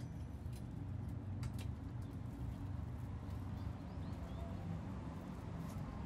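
Steady low hum, with a few light sharp clicks as raw whole chickens are pushed onto a metal rotisserie spit.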